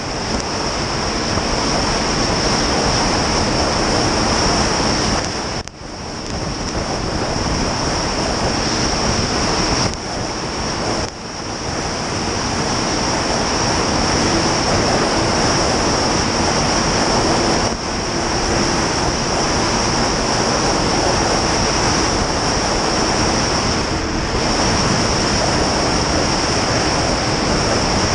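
Snowmobile riding at speed: a steady rush of wind on the microphone over the sled's engine and track noise, briefly dipping four times.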